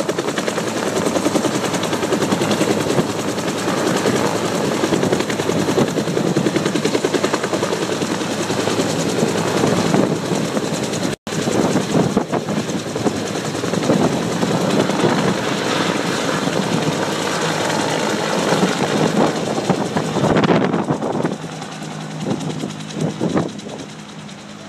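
Helicopter hovering close by, its rotor beating in rapid pulses as it lifts a capsized yacht. The sound grows quieter from about twenty seconds in.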